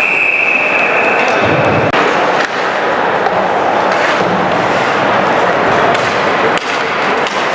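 Referee's whistle blown as one steady, shrill note for about two seconds, over the constant noise of an ice hockey rink. A few sharp knocks of sticks and puck follow later.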